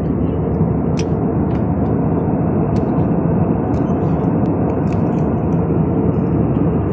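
Steady cabin noise of an Airbus A320-family jet airliner in descent: an even rumble and rush of engines and airflow, heard from a window seat inside the cabin.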